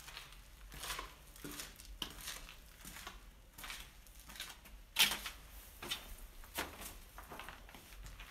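Footsteps crunching over loose rubble and grit, an irregular series of gritty steps and scuffs, the loudest about five seconds in.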